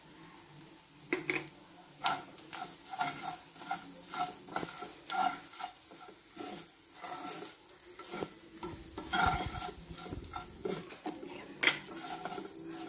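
A wooden spatula stirring and scraping clam meat around a ceramic-coated frying pan, in quick repeated strokes about two a second, each with a light ring of the pan. The dry fry sizzles faintly underneath.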